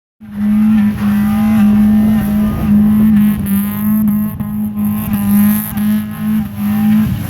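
A car engine running and revving up and down, with a steady low drone that breaks off briefly every half second or so.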